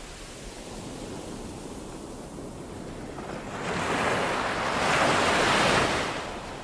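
Small waves washing up over wet sand at the shoreline, a steady wash that swells twice in the second half, then fades out at the end.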